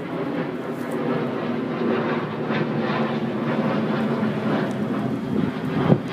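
Southwest Boeing 737 jet airliner climbing out after takeoff, a steady jet engine drone overhead. A single sharp click near the end.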